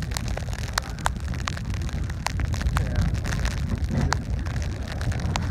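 Steady low wind rumble on the microphone with water noise around the boat, broken by about a dozen sharp, irregular ticks.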